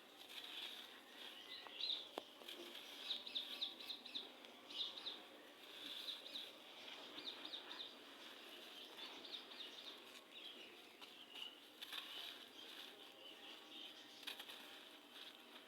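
Gritty red sand crumbling, a faint crackly crunching that comes in irregular clusters of small grains breaking.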